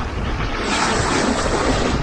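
Sea waves washing on the shore, one wave surging in with a rush of hiss about halfway through. Wind buffets the microphone with a steady low rumble underneath.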